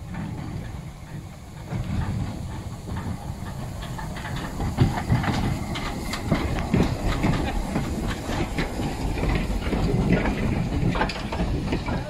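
Double-headed steam train led by the small saddle-tank locomotive Agecroft No. 3 passing close by, steam hissing and wheels clattering over the rail joints. It grows louder about two seconds in as the engines draw level, with sharp clicks and knocks from about four seconds on.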